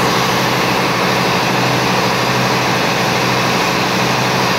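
Steady, loud drone of Cummins QSM11 six-cylinder diesel generator sets running at constant speed in a ship's engine room, a dense engine-room din with no change in pitch.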